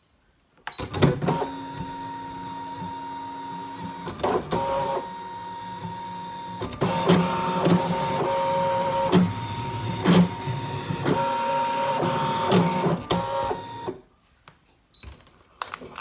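Brother ScanNCut electronic cutting machine cutting card: a steady motor whine from the blade carriage and mat feed, with scattered clicks. It starts about a second in, gets louder partway through and stops about two seconds before the end.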